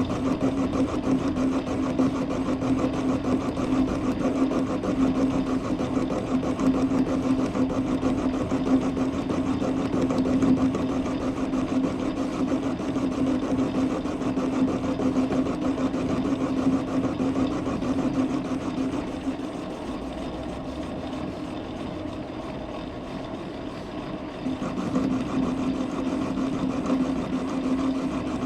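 Metal lathe running under power, turning a steel T-nut blank, with a steady hum; it drops somewhat quieter for a few seconds past the middle, then comes back up.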